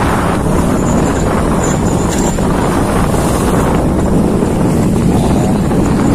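Steady, loud drone of a ship under way at sea, its low engine rumble mixed with wind buffeting the microphone.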